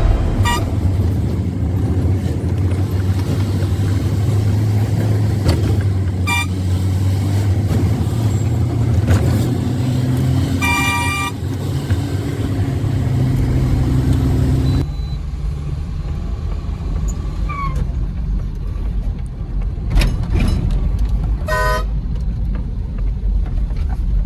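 Road vehicle's engine running while driving, a steady low drone, with a vehicle horn tooting briefly a few times; the clearest toots come about 11 and 21 seconds in.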